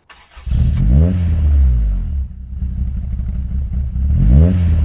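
Car engine revving, loud, with two sharp rev blips, about a second in and again near the end, and a deep running exhaust note between them.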